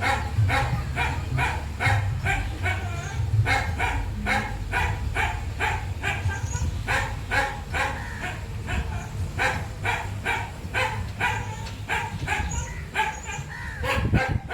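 A dog barking over and over, about two to three barks a second, with a steady low engine hum underneath.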